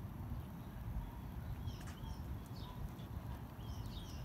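Birds chirping several times, short sliding high calls in the middle and again near the end, over a steady low rumble.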